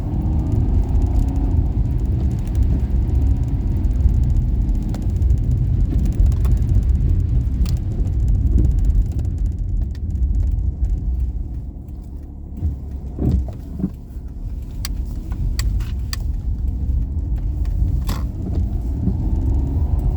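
Daihatsu Esse kei car being driven: steady low engine and road rumble. The engine note changes pitch with throttle near the start and again near the end, and eases off in the middle, where a few sharp clicks are heard.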